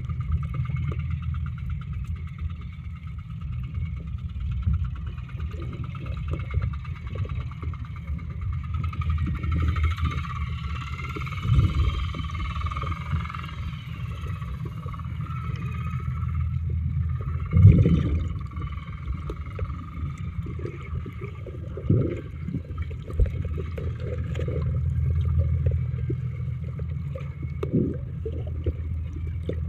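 Steady engine drone heard muffled through water, with a rapid pulsing to it and scattered dull thumps, the loudest about 18 seconds in.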